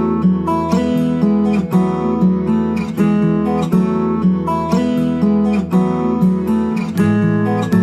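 Background music: strummed and plucked acoustic guitar with a steady bass line.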